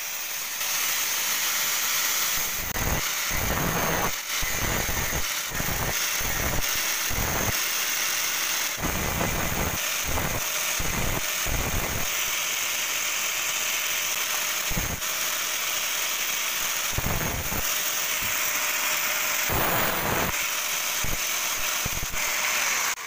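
Electric angle grinder with a green grinding disc running steadily with a high whine, grinding down weld built up on a worn power-tiller oil-pump part held in the hand. Heavier grinding noise comes in short surges every second or so, each time the part is pressed to the disc.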